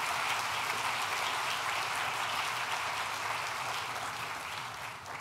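Audience applauding: many people clapping together, steady, then fading over the last second.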